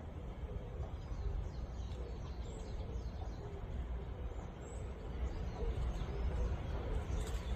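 Wild birds calling, with faint high chirps scattered through, over a steady low rumble.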